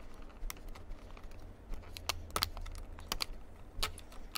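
Irregular sharp plastic clicks, about two a second, from hands working on a laptop's parts, over a low steady hum.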